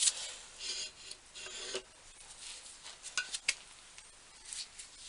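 Metal parts of an old hand-operated bench drill being handled: light rubbing and scraping, with a few small clicks about three seconds in.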